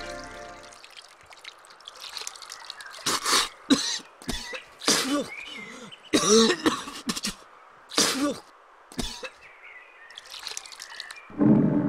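A person coughing and clearing their throat: a string of about eight harsh coughs with short pauses between them, followed near the end by a louder, deeper sound.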